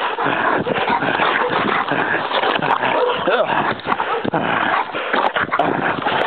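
A dog barking and whining at close range: a dense run of short calls with rising and falling whines.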